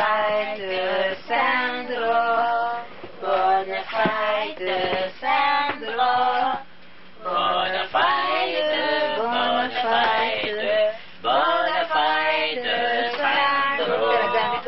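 A small group of people singing a song together, women's voices loudest, in long held notes, with a short pause about halfway through.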